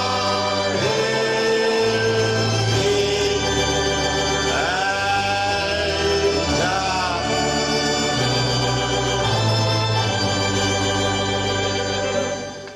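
Church hymn with sustained organ chords under singing, the voice sliding up into its notes a few times. The music fades out near the end.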